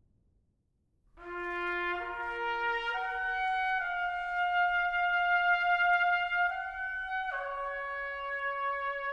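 Brass music starting about a second in: a slow melody of long held notes on trumpet-like brass.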